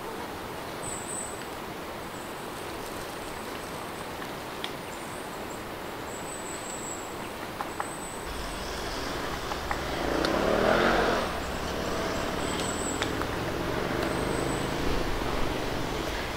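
Motorcycle engines passing nearby. A low engine drone comes in about halfway through, is loudest a couple of seconds later as the pitch bends, and then keeps running steadily. Faint high chirps come and go throughout.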